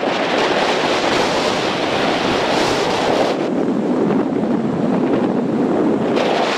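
Strong wind blowing hard across the microphone, over small waves washing onto a gravelly beach.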